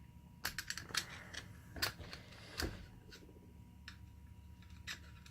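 Small metallic clicks and taps of flat-blade screwdrivers against the steel parts of a Spartan Locker differential locker as they are worked into place, with one louder knock about two and a half seconds in.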